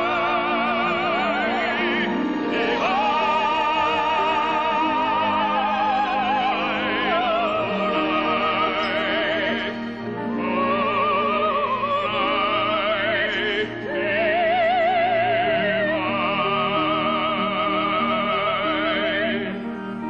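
Operatic-style singing with wide vibrato on long, high held notes over instrumental accompaniment, with short breaks between phrases about ten and fourteen seconds in.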